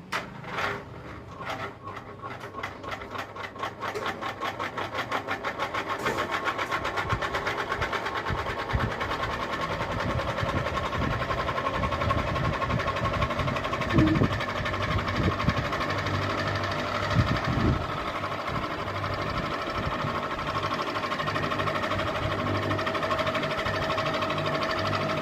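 Ceiling fan starting up: a rhythmic clicking that speeds up until it blurs into a steady hum, whose pitch keeps rising slowly as the fan gathers speed. A few louder knocks come about halfway through.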